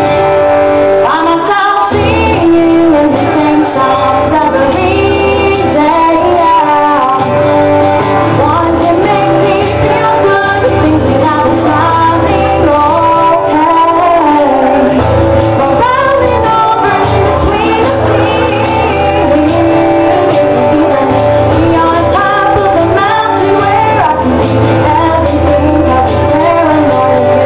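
Live music: a woman singing to her own acoustic guitar.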